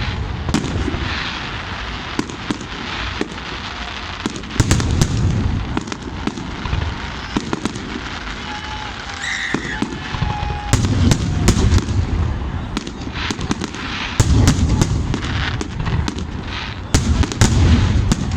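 Fireworks display: a steady run of sharp bangs and crackles, with heavier booms coming in clusters every few seconds.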